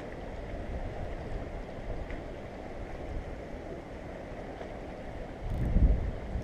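Wind blowing across the microphone, a steady low rush with a stronger gust about five and a half seconds in, over sea water washing against breakwater rocks.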